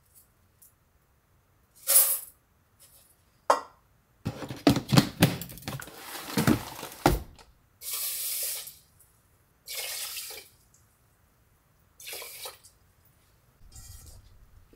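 Rice being rinsed in a rice cooker's inner pot: a couple of sharp knocks, a few seconds of clatter and splashing, then three short pours of water into the pot, each about a second long.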